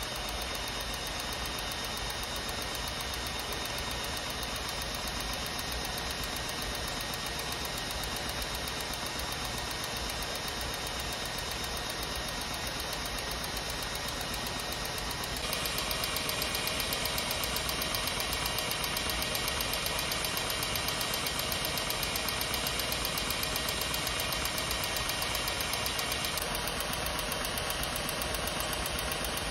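Electric hand mixer running steadily, its motor whirring as it spins a utensil in the beater socket. It gets louder and brighter about halfway through.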